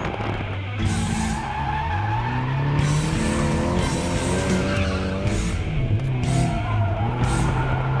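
Car engine heard from inside the cabin while drifting, revs rising and falling, with short bursts of tyre squeal about once a second, under a loud music track.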